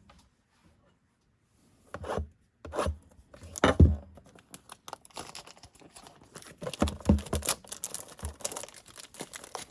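A trading card blaster box and its wrapping being torn open by hand: a few loud rips about two to four seconds in, then steady scratching and rustling of cardboard and wrapper.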